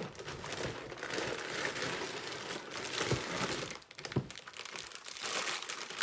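Plastic LEGO parts bags crinkling as they are handled and sorted, with two brief sharp clicks about three and four seconds in.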